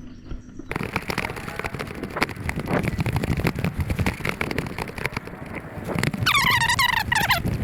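Footsteps and gear rustling on a moving body-worn action camera, a dense scuffing noise with many small knocks. About six seconds in there is a brief high-pitched squeal that falls in pitch.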